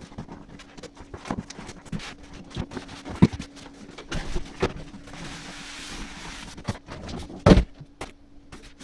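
A PC case and its packing being pulled out of a cardboard box: cardboard and packing knocking and scraping, a rustle partway through, and one loud thump about seven and a half seconds in.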